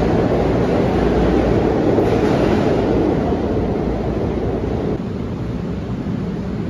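SEPTA Market–Frankford Line subway train pulling out of an underground station, a steady rumble of wheels on rail that eases off as the train leaves.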